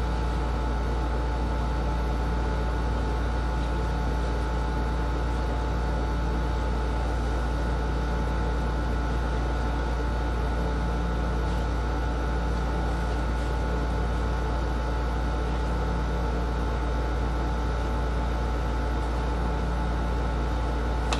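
Steady background hum with an even hiss and a few faint constant tones, unchanging throughout; no distinct pouring or stirring sounds stand out.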